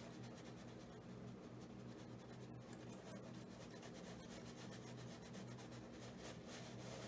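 Faint rubbing and scratching of a watercolour brush stroking across paper, over a low steady hum.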